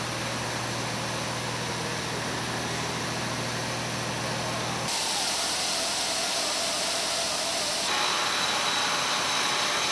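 Steady machinery noise with hiss, a low hum under it for the first five seconds or so. The sound changes abruptly about five seconds in and again near eight seconds.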